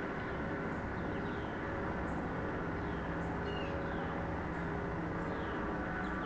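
A steady low droning hum made of several held tones that shift and overlap, of a source the recordist could not explain, with small birds chirping faintly over it.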